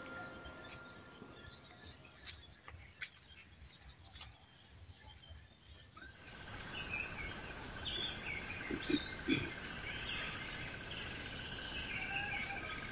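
Music fades out, then a few seconds of faint clicks. About halfway in, outdoor farmyard ambience rises: small birds chirping over a steady high tone, with two short, lower calls a little later.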